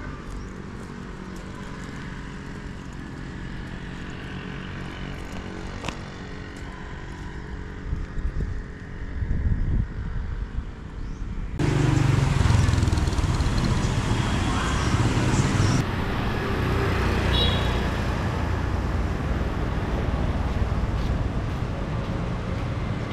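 Street traffic, with vehicle engines running. About halfway through it cuts abruptly to a louder, busier stretch.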